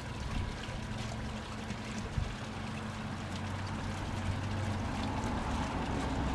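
G-scale model freight train rolling along the garden track, a steady low hum with rushing noise, with wind buffeting the microphone that grows louder toward the end.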